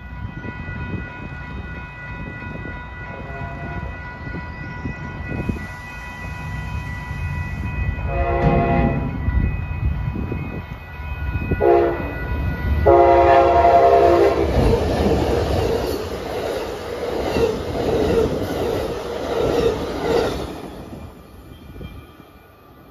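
Amtrak Coast Starlight led by two GE P42DC diesel locomotives approaching a grade crossing while the crossing bell rings steadily. The train sounds its horn several times, ending with a longer blast about thirteen seconds in. The locomotives and passenger cars then pass with a rumble and wheel clickety-clack, which fades near the end.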